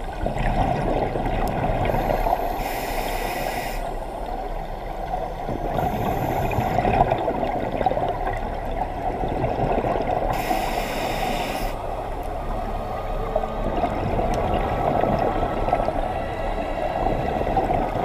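Scuba regulator exhalations heard underwater: three bubbling bursts, each about a second long, a few seconds apart, over a steady underwater rumble.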